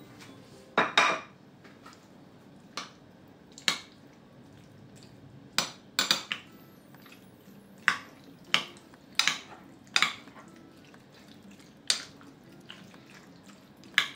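Metal utensil clinking against a glass bowl while stirring pasta and grated cheese: about a dozen sharp clinks at irregular intervals.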